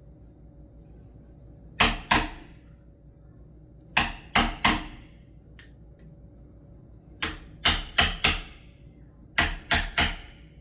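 A wood chisel being struck to cut a recess in a door's edge: sharp knocks in quick groups of two, three, four and three, each group about a second long, twelve strikes in all.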